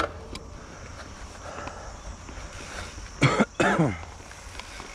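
A person coughing twice in quick succession, about three seconds in.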